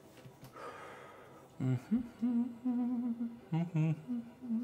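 A man humming a tune to himself, a string of held notes with a slight waver and short breaks, starting about a second and a half in after a quiet opening.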